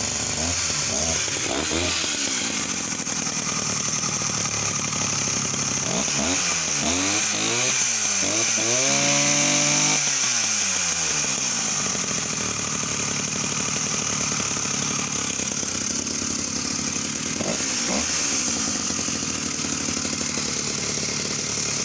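Vintage Husqvarna E70 single-cylinder two-stroke chainsaw engine (45 mm bore, 44 mm stroke) running. It is revved up and down in several throttle blips, with the biggest rev just before the halfway point, then settles into a steady idle.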